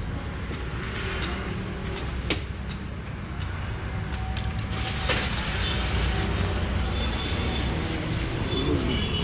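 Steady low rumble of background noise, with two sharp clicks about two and five seconds in as a screwdriver works the fasteners of a plastic wheel-arch liner.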